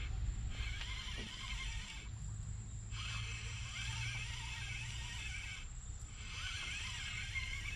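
Spinning reel being cranked to bring in line, a wavering whir that comes in three stretches with short pauses between them, over a steady low rumble.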